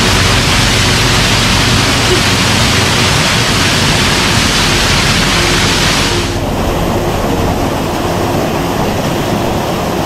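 Small waterfall pouring into a rock pool, a steady loud rush of falling water. About six seconds in, the high hiss thins out and the rush becomes slightly quieter.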